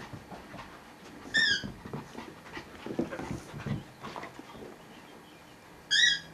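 A Border collie and a papillon playing: a short high-pitched squeal twice, once about a second and a half in and again near the end, with panting and scuffling in between.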